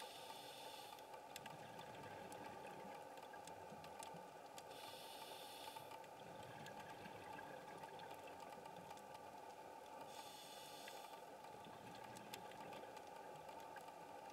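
Faint underwater sound of a scuba diver's regulator hissing with each breath, about a second at a time and roughly every five seconds, over a steady low hiss with scattered faint clicks.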